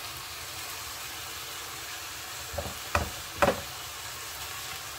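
Minced beef sizzling as it browns in a nonstick frying pan, stirred with a wooden spoon. Three short knocks of the spoon against the pan come in quick succession a little past the middle.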